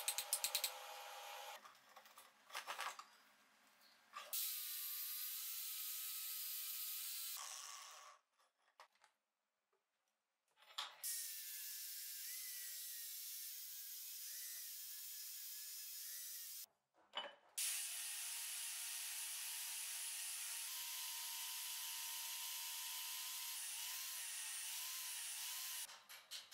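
Corded angle grinder with an abrasive disc grinding the threaded steel screw of a leg vise, running steadily in three long stretches with its pitch wavering, broken by short silences. It opens with a few hammer blows on hot steel at the anvil.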